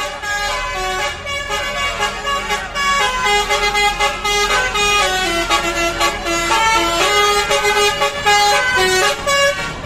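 Bus's telolet basuri musical horn playing a tune, a quick run of changing notes one after another.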